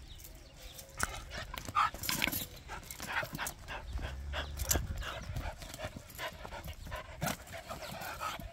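A young dog moving about close by and panting, with many short clicks and scuffs.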